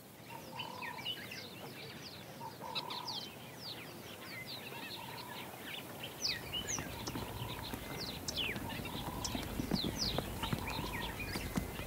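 Waterhole ambience: many small birds chirping in quick, short falling notes, with a few lower calls recurring and a low rumble that grows louder about halfway through.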